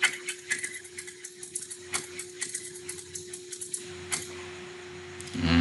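Typewriter sound effect playing back: a rapid, irregular run of key clacks that stops about four seconds in, over a faint steady hum.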